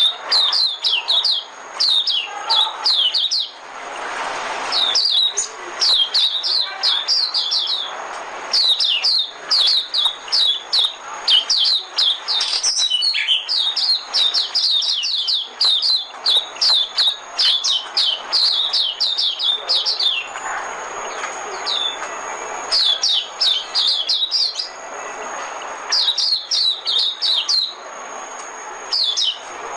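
White-eye (vành khuyên) singing: fast runs of short, high, down-slurred twittering notes, broken by brief pauses.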